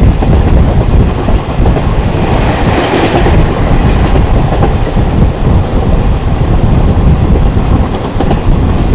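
Express train hauled by WCAM-1 electric locomotive 21810 running at top speed: a loud, steady rumble of wheels on rails, with faint clattering over the track. About three seconds in, the noise briefly swells and brightens as the train passes a lit station structure.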